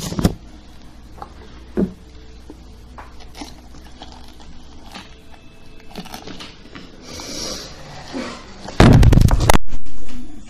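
A metal spoon scraping and scooping wet pulp and seeds out of a pumpkin, with scattered scrapes and a couple of soft knocks. Near the end a much louder rough rumbling crackle lasts about a second and cuts off suddenly.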